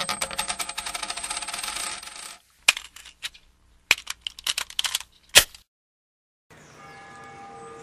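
A rapid run of ringing metallic clinks for about two and a half seconds, then a scatter of single clinks and a brief silence. Faint sustained bell-like tones come in near the end.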